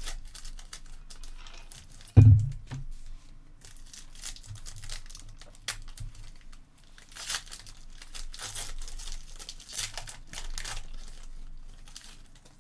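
Trading card packs being torn open and their wrappers crinkled, in a run of short rustles, with one low thump about two seconds in.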